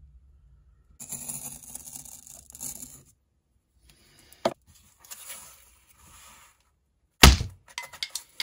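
Circle cutter blade scraping around in cardboard, scoring a round sound hole, in two stretches with a sharp click between them. Near the end comes a single loud thump.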